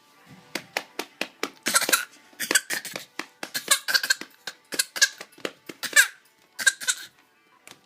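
Repeated bursts of high-pitched laughter, mixed with many short sharp clicks or knocks.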